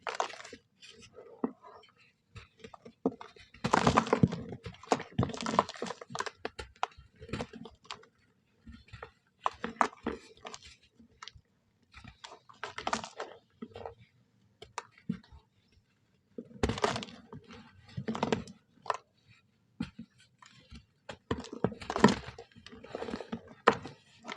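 Soft brown sand crunching and crumbling in irregular bursts of crackle, with short pauses between them.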